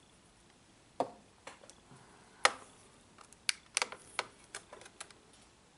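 About a dozen irregular small clicks and taps of tools being handled, starting about a second in: the UV resin applicator put down and a small UV light picked up and switched on.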